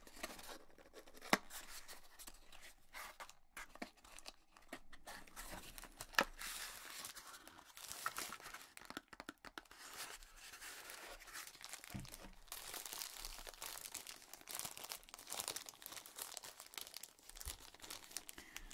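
Small accessory package being opened by hand: a couple of sharp clicks, then steady crinkling and tearing of the packaging from about six seconds in.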